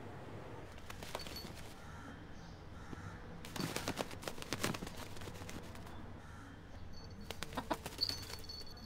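A rooster flapping its wings: a burst of rapid wingbeats about three and a half seconds in, followed by a shorter flurry near the end.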